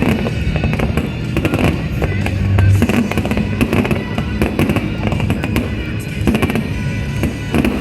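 Fireworks going off in quick succession, a dense run of cracks and bangs, over loud music playing throughout.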